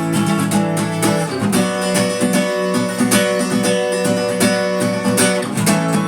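Acoustic guitar strumming chords in a steady rhythm, with a chord change about a second and a half in and another near the end.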